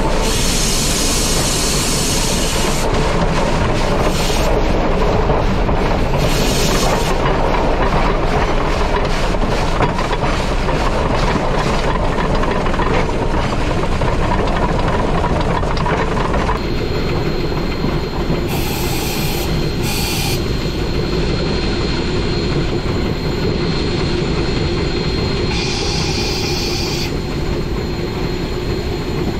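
Shay geared steam locomotive running along the track, its wheels and drive gear giving a steady loud rumble and clatter. Short bursts of steam hiss come several times. About halfway through the sound changes and a faint steady high whine comes in.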